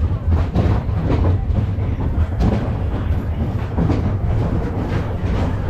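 Big Thunder Mountain Railroad's mine-train roller coaster cars rolling along the track into the station: a steady low rumble from the wheels, with irregular clacks and knocks on top.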